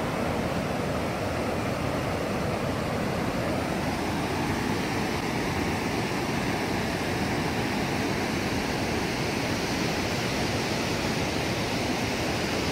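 Waterfalls of the Big Sioux River: whitewater rushing steadily over rock ledges and cascades.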